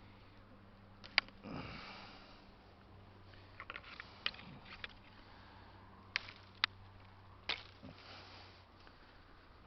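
Rustling of someone moving through trailside brush, with several sharp, irregularly spaced clicks and two brief hissy swells.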